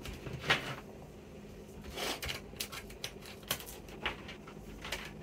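Irregular light clicks and taps, about half a dozen, from a laptop motherboard and its cables being handled and connected for a test, over a faint steady low hum.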